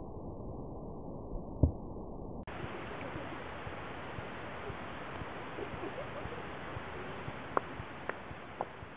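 Pool water splashing and rushing around a waterproof camera held at the surface, a steady noisy wash. There is a single knock about one and a half seconds in and a few sharp clicks near the end.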